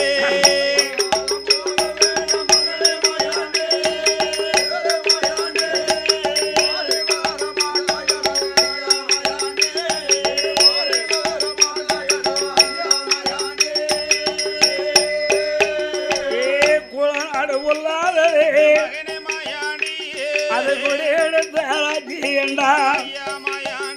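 Villupattu (bow-song) ensemble playing an instrumental interlude: rapid jingling, rattling percussion and drumming over a steady held melody, the melody turning more ornamented after about 17 seconds.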